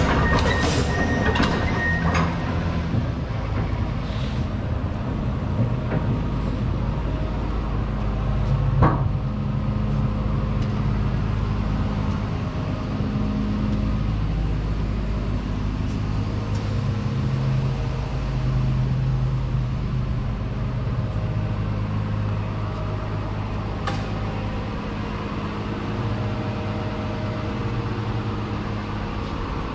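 Komatsu PC210LC-11 excavator's six-cylinder diesel engine idling with a steady low rumble. A single short click is heard about nine seconds in.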